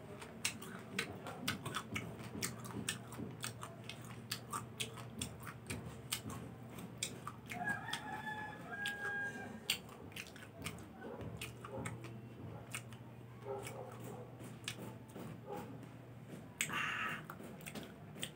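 Close-up chewing of a citrus slice, many wet clicks and crunches throughout. About eight seconds in, a rooster crows once, and near the end there is a brief hiss.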